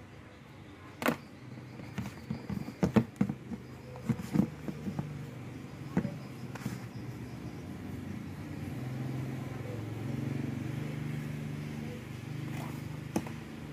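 Plastic parts of a small character desk fan being handled and fitted together: a string of sharp clicks and knocks in the first half. After that a steady low hum carries on, with a single click near the end.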